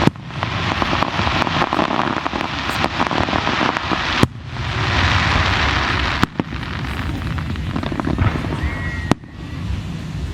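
Aerial fireworks bursting: four sharp booms, with dense crackling between them that swells after each burst.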